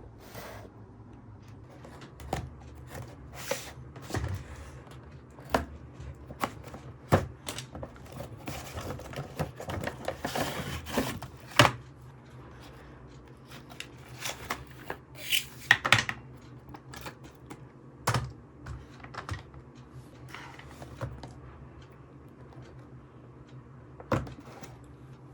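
Hands handling a plastic remote-control toy car and its packaging: irregular clicks, taps and knocks, with a stretch of rustling about nine to eleven seconds in.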